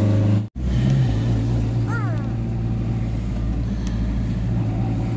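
Motorhome engine running and road noise heard from inside the cab while driving slowly in town traffic, a steady low hum. The sound cuts out for an instant about half a second in.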